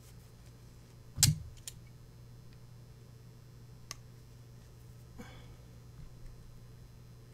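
Channel-lock pliers and a flat-bladed tool clicking against a metal butt hinge while prying at its button-tip cap: one sharp metallic knock about a second in, then a few lighter clicks and a short scrape.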